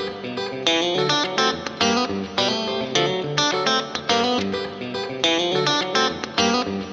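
Background music: an electric guitar with effects playing a quick run of plucked notes in a repeating pattern.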